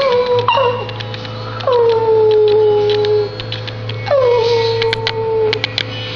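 Silky terrier howling in long drawn-out notes, each starting high, sliding down and then held: a short one near the start, then two long howls with a brief pause between them.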